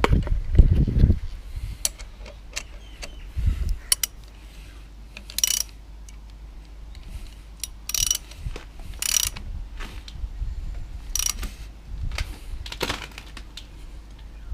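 Socket ratchet clicking in short bursts of strokes every second or few, as the Mazda KLV6 V6 is turned over by hand on the crankshaft to check that the new timing belt's marks line up. A low steady hum runs underneath.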